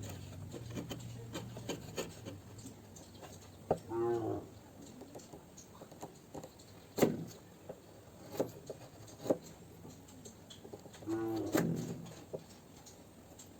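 Wood rubbing hard against wood, giving two drawn-out squeaks, among several sharp knocks of wood on wood.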